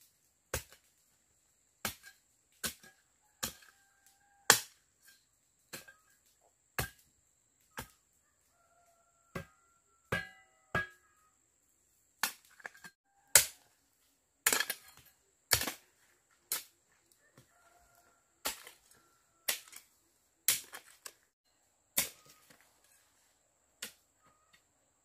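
Repeated sharp chopping blows of a hand tool, about one a second and sometimes in quick pairs, irregular in strength.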